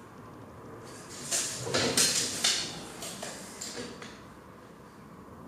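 A tape measure and a marker pen are handled against a PVC pipe, making rough scraping and rubbing sounds. The loudest scrapes come between about one and two and a half seconds in.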